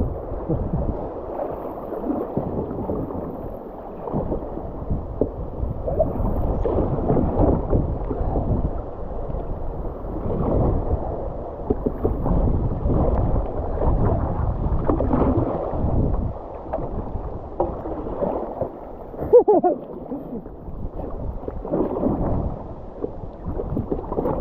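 Whitewater splashing and rushing around a kayak running a rapid, a surging, uneven noise heard muffled with little treble. About three quarters of the way through, a brief pitched sound rises over it at the loudest moment.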